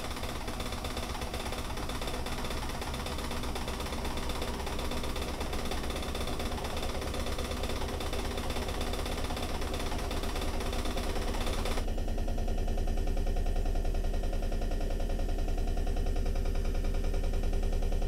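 Steady low mechanical rumble and hum, like a machine running, with a hiss over it that cuts off about twelve seconds in and leaves the rumble slightly louder.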